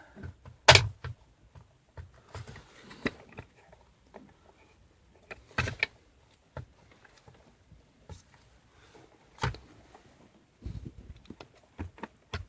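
Irregular plastic clicks and knocks as the small trim covers are wiggled and pried out of a steering wheel, with the sharpest click about a second in.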